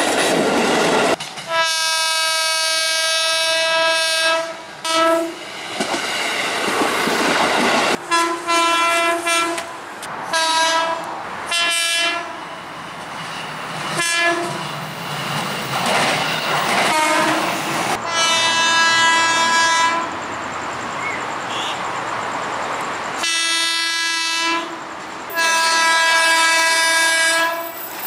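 KRL commuter electric trains sounding their horns: a series of separate blasts, some short and some held for two to three seconds, over the noise of trains running past on the rails.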